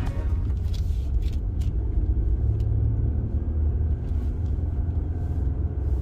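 Jeep Gladiator driving on a snowy forest road: a steady low rumble of engine and tyres, with a few faint ticks.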